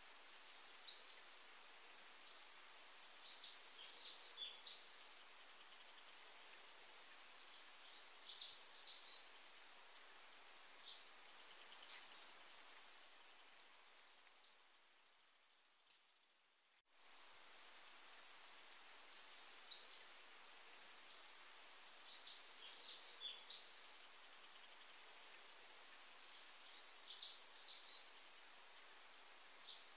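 Faint birdsong: clusters of short high chirps and twitters over a steady hiss. It fades out about halfway through, breaks off sharply, then starts again.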